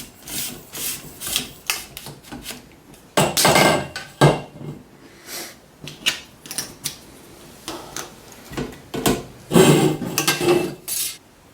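Sections of a telescopic pole being handled and pulled apart: scattered clicks and knocks of pole tubes and plastic clips, with two longer sliding scrapes, about three seconds in and again near the end.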